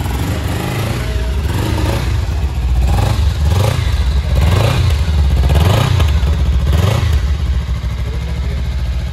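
Kawasaki Ninja 300's liquid-cooled parallel-twin engine idling and being revved with several short throttle blips, each rising and falling in pitch, in the middle, then settling back to idle.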